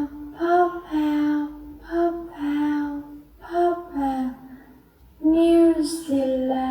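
A woman's voice saying "pop out" over and over in a sing-song way, each first syllable higher than the second, four times.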